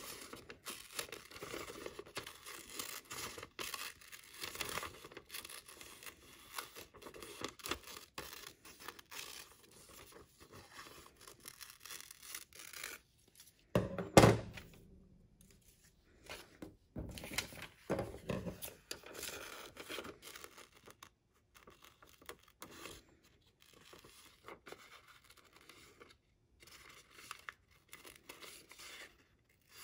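Scissors snipping through newspaper, with the sheet rustling and crinkling as it is turned and handled. A single loud thump about halfway through.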